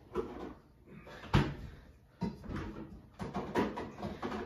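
A few knocks and clunks of someone moving about and handling household things, the sharpest about a second and a half in, with softer rustling between them.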